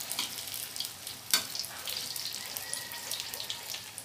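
Turon (banana and jackfruit spring rolls) frying in hot oil in a pan: steady sizzling with fine crackles, and one sharp click about a second and a half in.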